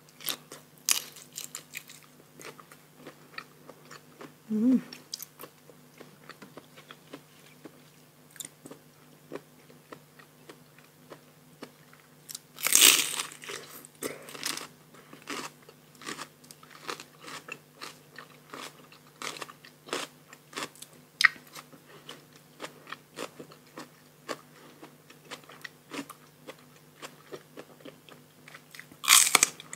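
Close-up eating sounds: a person biting and chewing mouthfuls of spicy rice-noodle salad with raw shrimp and fresh vegetables, with many crisp crunching clicks. There are louder bursts about 13 seconds in and again near the end, and a short hum about four seconds in.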